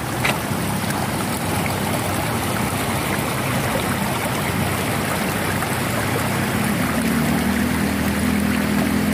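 Water running steadily along a concrete irrigation channel beside rice paddies, a continuous rushing noise. A low steady hum joins in about seven seconds in.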